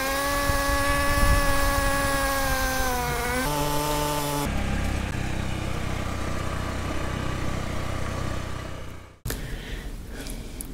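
Utility vehicle engine running as it drives across rough pasture. First comes a steady pitched engine whine, which drops in pitch a few seconds in and gives way to a rougher rumble. It cuts off suddenly near the end.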